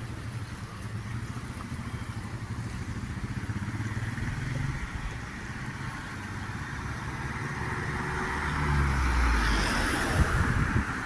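A motor engine running with a steady low rumble, joined by a rushing noise that grows louder over the last few seconds.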